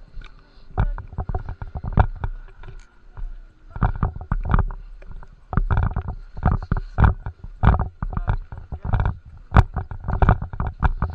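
Irregular knocks, thumps and rustles of handling and movement close to a body-worn action camera, in uneven clusters with a faint steady hum underneath.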